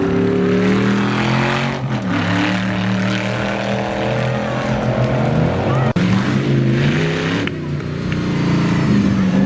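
Toy RC crawler car's electric drive motor and gearbox whining steadily as it is driven. The pitch shifts up and down with the throttle, changing sharply about two seconds in, around six seconds and again past seven seconds.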